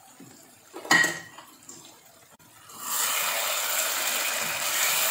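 A short clink about a second in, then from about three seconds in a steady sizzle of tuna and green chilli sambal frying in oil in a wok as a spatula stirs it.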